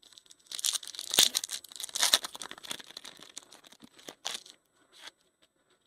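Baseball card pack wrapper being torn open and crinkled by hand: a dense crackling tear in the first couple of seconds, then lighter scattered crinkles as the wrapper is pulled off the cards.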